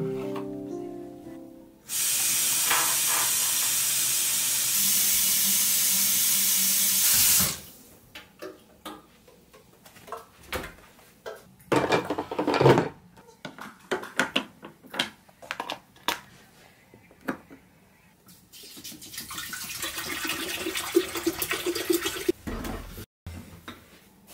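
Tap water running hard for about five seconds, starting and stopping abruptly. Then a string of light clicks and knocks of things being handled, and a softer hiss near the end.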